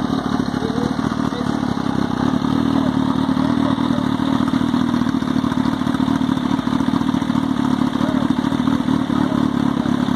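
Kawasaki H2's supercharged 998 cc inline-four engine running steadily, with no revving.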